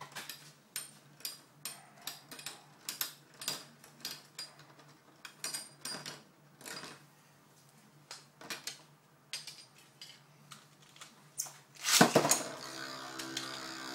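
Metal-wheeled Beyblade spinning tops clashing in a plastic stadium: a run of sharp, irregular metallic clicks and clacks. About 12 s in comes a loud launch from a ripcord launcher, followed by the steady whir of freshly launched tops spinning.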